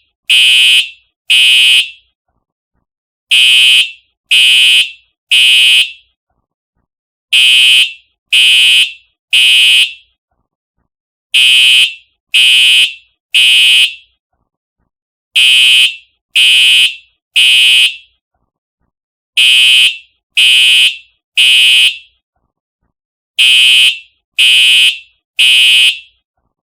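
Simplex TrueAlert fire alarm horn strobe sounding the temporal-three evacuation pattern: three loud half-second horn blasts, then a pause of about a second and a half, repeating every four seconds. The horn has a harsh tone, strongest high in pitch.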